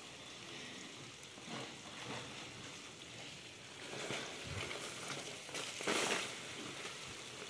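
Cardboard egg crates rustling and scraping as they are handled over a basin, with dry dubia roach frass and bedding pattering down off a shaken crate; the loudest pour comes about six seconds in.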